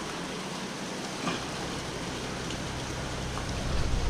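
Steady hiss of moving water, with a faint tap about a second in and a low rumble building near the end.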